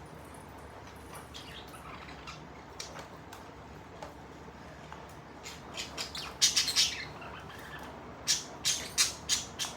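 Budgerigars chirping and squawking, sparse and soft at first, then a flock breaking into loud, rapid chatter of sharp high calls about halfway through.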